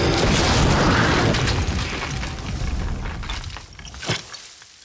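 Film sound effect: a loud boom that dies away over about three seconds, followed by a single sharp crack about four seconds in, as the bone armour is torn apart and crumbles.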